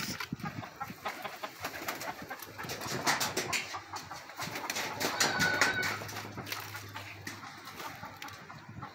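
Pigeons cooing in a backyard coop, with scattered short clicks and rustles.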